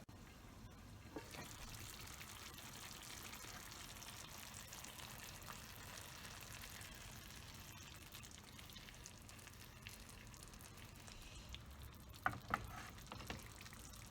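Food sizzling steadily in a frying pan, with a few sharp clicks of a utensil or lid near the end.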